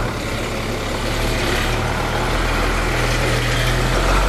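A heavy vehicle's engine running with road noise, a steady low hum that grows louder from about a second in, as of traffic approaching.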